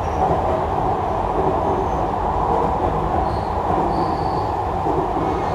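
Jakarta MRT train running at speed, heard from inside the passenger car: a steady rumble of wheels on rail and running gear.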